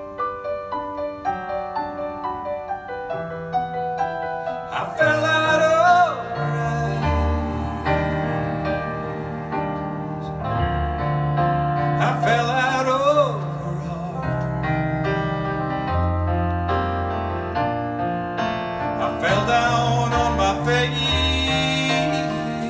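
Live band playing an instrumental break in a slow ballad: piano chords over a bass line, with a lead instrument bending and wavering three times, each time with a hissing wash above it.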